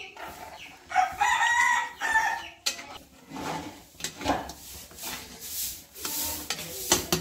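A rooster crows once, starting about a second in and lasting over a second. After it, a metal ladle scrapes around a kadhai of curry gravy several times as it is stirred.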